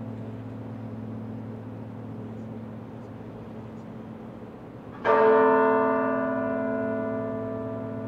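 Halliburton Tower's bell tolling slowly. The previous stroke is still ringing when the bell is struck again about five seconds in, and its ringing tone then dies away slowly.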